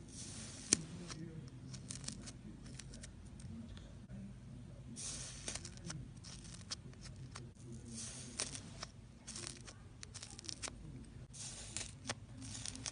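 Iceberg slime's dried crust crackling and crunching as it is pressed and broken, in crisp clusters of crackles with a sharp click about a second in.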